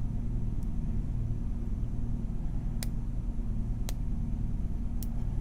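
A steady low hum runs throughout. Over it come a few faint, sharp clicks, about three, four and five seconds in, from a lock pick working the pins of a cheap Tru Bolt padlock.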